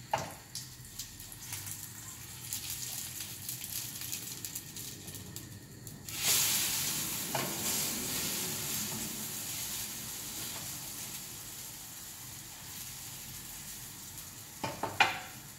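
Potato pancakes frying in hot sunflower oil in a frying pan, with small clicks of the wooden spatula. About six seconds in, the sizzle suddenly grows loud, then slowly dies down. A few sharp knocks come near the end.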